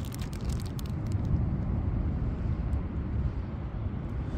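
Steady low outdoor rumble. In the first second there are a few faint crinkles from the plastic bag wrapped around a handheld GPS speed meter.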